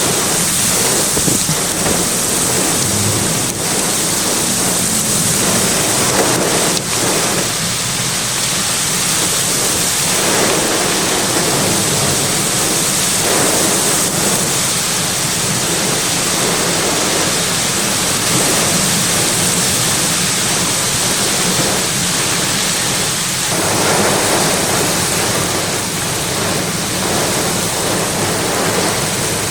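Heavy rain and severe gusting wind of a thunderstorm's outflow: a dense, steady rush that swells in surges, with a couple of sharp ticks in the first few seconds.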